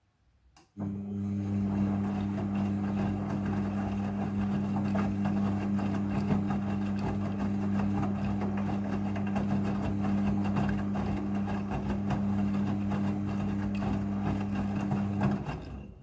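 Midea front-loading washing machine turning its drum during the rinse cycle. The motor hums steadily while the wet laundry tumbles and swishes. It starts about a second in and stops abruptly shortly before the end, as the drum pauses between turns.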